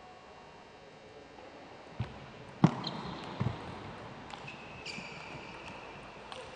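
Table tennis doubles rally: after about two quiet seconds, sharp clicks of the celluloid ball striking paddles and the table at a rally's pace, the loudest about a third of the way in. High squeaks run under the strikes twice.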